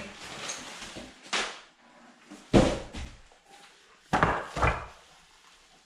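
Shipping packaging being handled: the plastic liner rustles, then knocks as the cardboard box is moved and set down on the countertop, one loud thud about two and a half seconds in and two more close together a little past four seconds.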